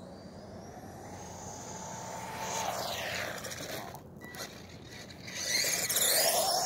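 Haiboxing 16889 1/16-scale RC truck's stock brushed 390 motor whining at full speed on a 3S LiPo, with tyre hiss on asphalt. It speeds past twice, building to a peak and dropping in pitch each time; the second pass, near the end, is the louder.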